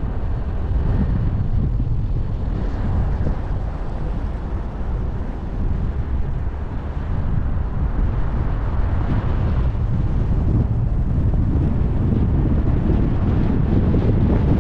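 Wind rumbling on the microphone over the steady running noise of a car driving on the road, growing a little louder in the last few seconds.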